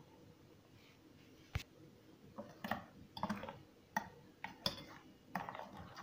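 Metal spoon stirring milk into mashed-banana batter in a stainless steel bowl, clinking and scraping against the bowl's side several times a second from about two seconds in, after a single sharp tap.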